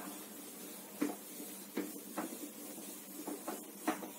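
Whiteboard duster wiping marker writing off a whiteboard: a run of short swipes and knocks against the board, about six strokes, the loudest about a second in and just before the end.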